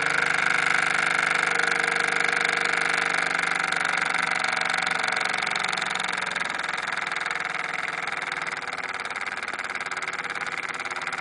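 Bowman M180 model steam engine running with a rapid, steady chuffing, gradually getting quieter.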